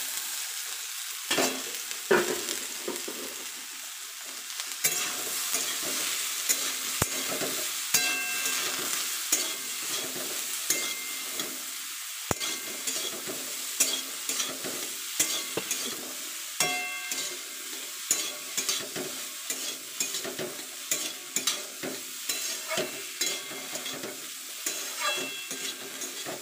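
Boiled chickpeas and potato sizzling in hot oil in a steel kadai. A metal spatula stirs and scrapes them, clicking often against the pan, with the clicks growing more frequent after the first few seconds.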